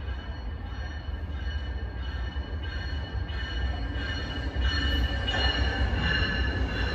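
Commuter train, cab car leading, rolling toward the station and passing beneath, getting louder as it comes under about five seconds in. A low rumble runs under a steady high squeal.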